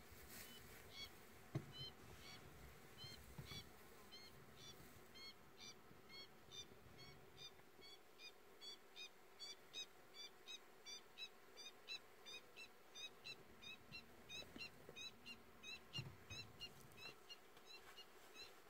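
A bird calling steadily in faint high chirps, about two or three a second, over faint low thuds.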